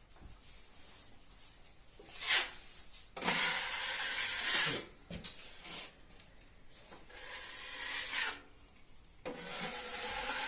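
Spatula scraping drywall joint filler smooth over plasterboard joints, in a series of strokes: a short one about two seconds in, then several longer ones of a second or more.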